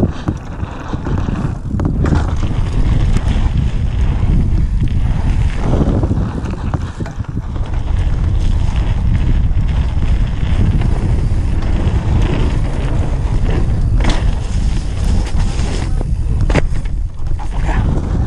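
Mountain bike ridden fast over dirt trail, heard from a camera on the rider: wind buffets the microphone over the steady rumble of the tyres and the rattle of the bike. A few sharp knocks come near the end.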